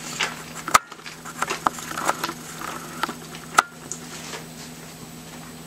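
Pages of a Lyman shotshell reloading handbook being leafed through: light paper rustling and scattered ticks, with two sharp clicks, one a little under a second in and another about three seconds later. A faint steady hum lies underneath.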